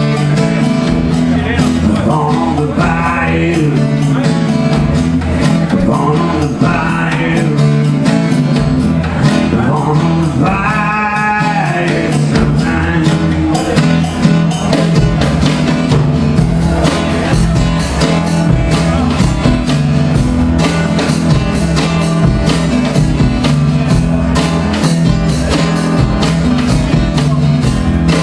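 Live acoustic guitar and drums playing a blues-rock groove with a steady beat. A wavering held note rises and falls about ten seconds in.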